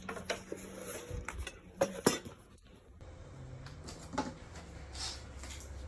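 Hard computer-case parts being handled, giving scattered clinks and knocks, with two sharper clacks about two seconds in.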